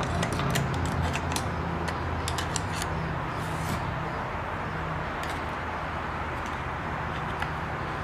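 Light clicks and taps of hands and a tool working a timing belt onto its pulley inside a Singer Stylist 522 sewing machine, most of them in the first three seconds, over a steady low hum.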